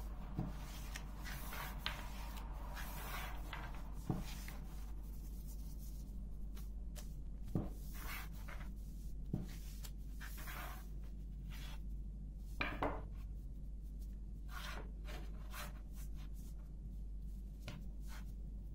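Hands rolling thin pastry dough around a long wooden rolling pin on a floured board: repeated soft swishes of rubbing and scraping, with several light knocks of the pin against the board.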